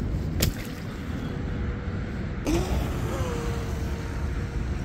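Brushless motor of a small electric RC mono boat whining up in pitch about two and a half seconds in, then holding a steady whine as the boat runs on the water. A sharp knock comes shortly after the start.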